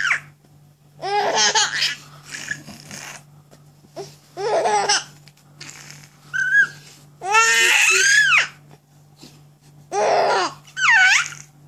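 Baby laughing in about six separate bursts, high squealing peals with short pauses between, some gliding up and down in pitch.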